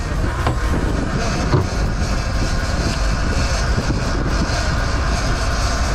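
Fishing boat's engine running steadily under way, with wind noise on the microphone.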